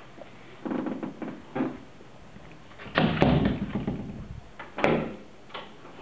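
An interior door being handled: a few short knocks and scrapes in the first two seconds, then a heavier thud about three seconds in and a sharp knock about five seconds in.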